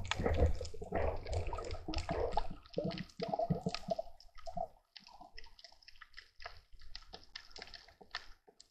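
Underwater water noise around the camera: gurgling and sloshing through the first half, then quieter, with scattered faint clicks and crackles.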